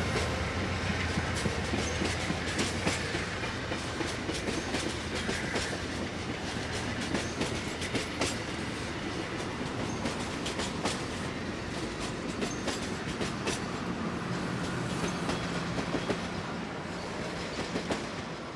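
Amtrak passenger cars rolling past at speed, steel wheels clacking over rail joints through a steady rolling rumble. The sound fades near the end as the last car, a heritage private car, goes by.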